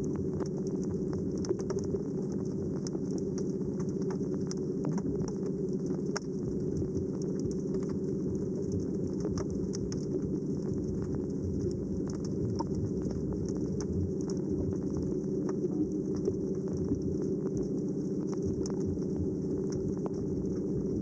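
Underwater ambience picked up by a submerged camera: a steady low drone with a sprinkling of faint scattered clicks.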